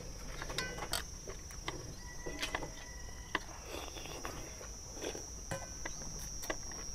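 Noodle soup being eaten fast: chopsticks and spoons click and tap against stainless steel bowls, with slurping of noodles. A steady, high insect drone runs underneath.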